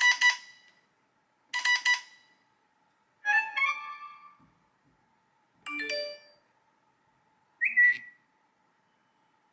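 A run of classic iPhone text-message alert tones played one after another: five short, different electronic chimes with brief silences between them. The last one is a quick upward-gliding blip.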